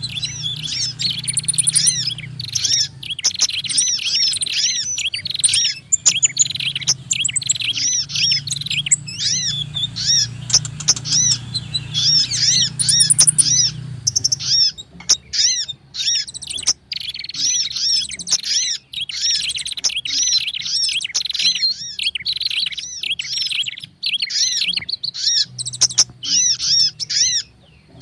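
Bird-lure recording of small songbirds, a mix of prenjak, sogon and kolibri (sunbird) calls, chirping busily and continuously in rapid, overlapping high notes. A low hum runs under the first half.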